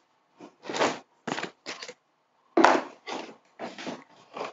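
Packaging and fabric handled, a series of short rustles and crinkles about every half second.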